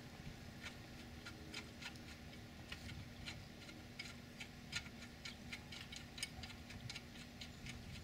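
Faint, irregular light metallic clicks as a scooter's rear axle nut and tabbed lock washer are turned and snugged up by hand.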